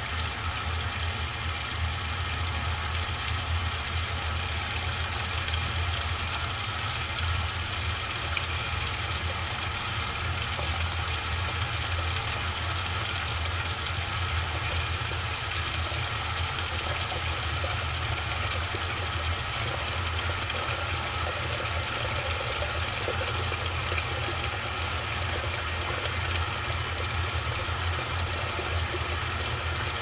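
Top-loading washing machine making a steady low hum with an even hiss over it, heard from inside its drum.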